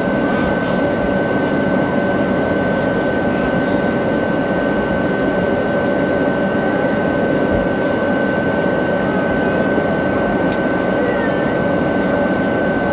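Steady cabin noise of an Airbus A321-211 taxiing onto the runway, its CFM56 engines running at low taxi power with a steady high whine over a rushing hum.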